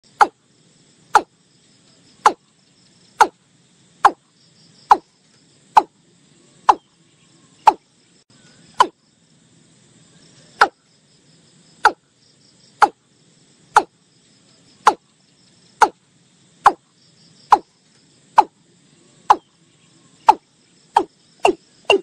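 Watercock calling: a long series of short, sharp notes about one a second, quickening to about two a second near the end. A faint, steady, high-pitched insect chorus runs underneath.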